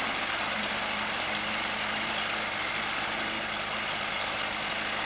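Tiller-steered outboard motor running steadily at trolling speed, a low hum under a steady hiss.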